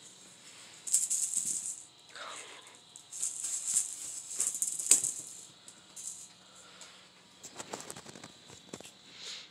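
Kittens scrabbling about in their pen: bursts of dry rattling and scratching like a shaken maraca, with a run of light clicks near the end.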